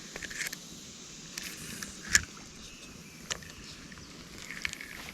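A few scattered light knocks and clicks over faint outdoor background, the loudest a dull thump about two seconds in.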